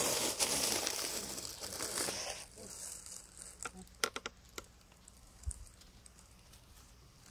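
Crinkling, rustling noise, loudest for the first two seconds or so, then a few sharp clicks about four seconds in.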